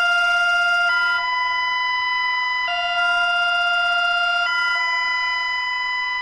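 Synthesized two-tone alert alarm: a buzzy tone that alternates hi-lo between a lower and a higher pitch about every two seconds, like an emergency alert signal or a hi-lo siren.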